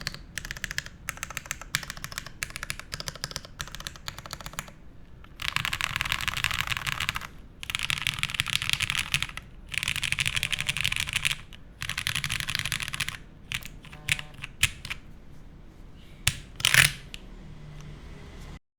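Typing on a sandwich-mount mechanical keyboard with lubed Cherry Hyperglide Black linear switches on an aluminium plate and GMK keycaps. Ordinary typing gives way to four dense runs of very rapid keystrokes in the middle, then scattered single keystrokes and one louder strike near the end.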